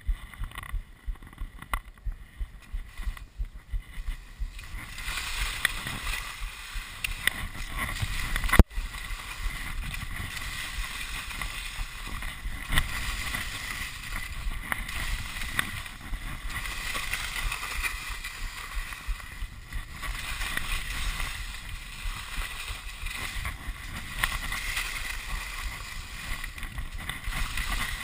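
Telemark skis scraping and skidding over hard, firm snow during a descent, a steady rasping hiss with some wind on the microphone. A run of quick thumps in the first few seconds, and one sharp knock about nine seconds in.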